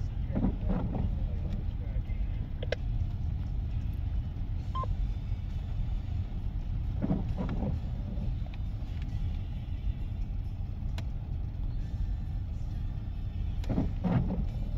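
Steady low rumble of a freight train of trash hopper cars rolling slowly past, heard from inside a car. The windshield wipers sweep the glass three times, about every six to seven seconds.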